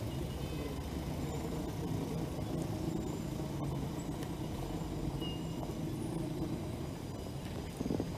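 Steady low rumble of outdoor urban background noise, with a brief thump near the end.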